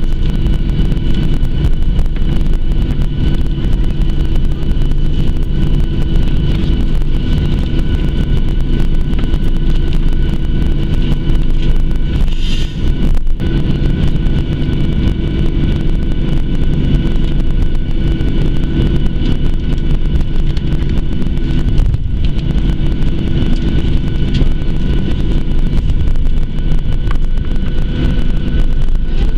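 Cabin noise of a Boeing 737-700 heard from a seat over the wing: the CFM56-7B jet engines running with a steady deep rumble and a few steady tones, the aircraft rolling on the ground.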